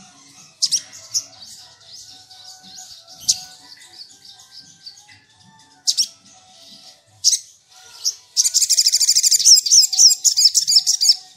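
Caged male olive-backed sunbird calling: scattered sharp, high chirps, then from about eight seconds in a loud, rapid twittering song that lasts about three seconds.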